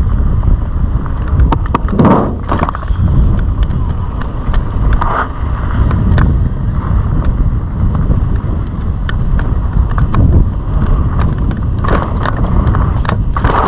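Mountain bike ridden fast over dirt jumps and rollers: wind buffeting the camera microphone, tyres on loose dirt, and frequent sharp clacks and rattles from the bike over the bumps and landings.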